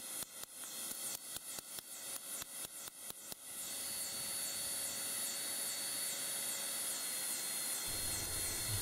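Hammer blows on hot file steel laid on a rock used as an anvil: quick, light, evenly spaced strikes, about four a second, that stop about three and a half seconds in. A steady hiss with a faint high whine runs under them and on after them.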